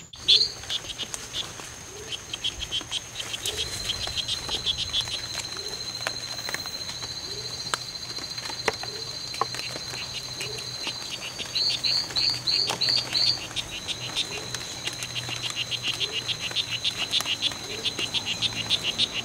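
Strawberry poison dart frogs (Oophaga pumilio) calling in long trains of rapid chirps, with a louder run of chirps about twelve seconds in, over a steady high-pitched buzz.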